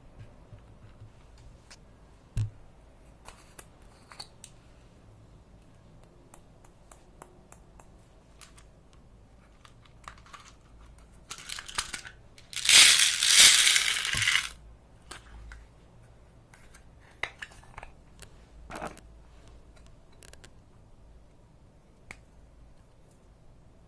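Handling sounds: scattered small clicks and taps, with a loud crinkling, rustling burst lasting about two seconds a little past halfway.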